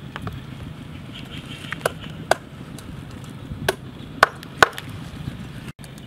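Knife chopping a whole raw chicken on a wooden cutting board: five sharp chops spread over a few seconds, the last two the loudest.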